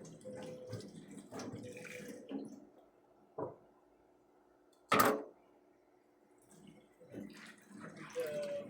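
Irregular water and handling sounds, as of washing at a sink, with a small click and then one sharp, loud knock about five seconds in.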